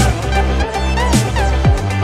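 Electronic music with a heavy beat: drum hits that drop in pitch about twice a second over a sustained low bass, with a bright cymbal crash at the start and again just past halfway.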